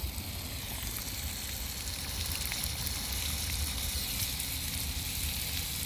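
Lawn sprinkler spraying water onto grass and pavement: a steady hiss with faint pattering of droplets, over a low rumble.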